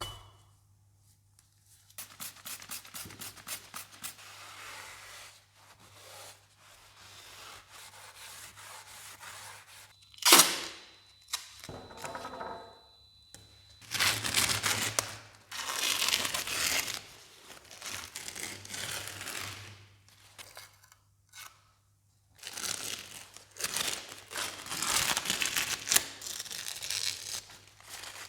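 Intermittent rustling and hissing handling noises in a small workshop room, with a sharp knock about ten seconds in and a faint steady whine for a few seconds after it.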